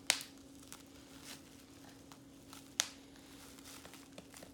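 Bubble wrap being popped by hand: two sharp loud pops, one right at the start and one near three seconds in, with a few fainter pops and crinkles in between. A steady low hum runs underneath.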